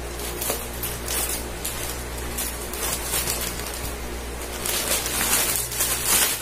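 Scissors snipping through a thin plastic courier mailer bag, a series of short crisp cuts, then the plastic crinkling and rustling as the bag is pulled open, loudest near the end.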